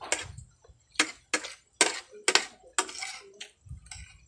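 Close-up eating sounds: short crunchy chewing and utensil clinks, about two a second.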